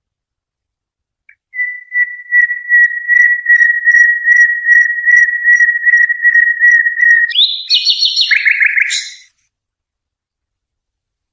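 Cage songbird song from a recording used to teach young birds the 'Haddad' song: one long whistled note, held about six seconds with a slight pulsing, then quick trills at a higher and a lower pitch, ending about nine seconds in.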